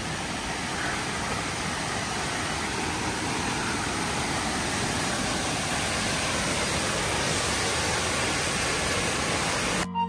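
Waterfall rushing steadily, an even unbroken noise, cut off suddenly near the end.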